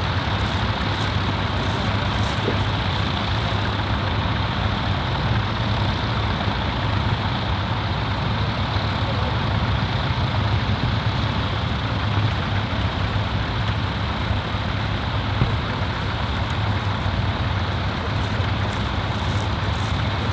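David Brown tractor engine running at a steady speed, an even low drone.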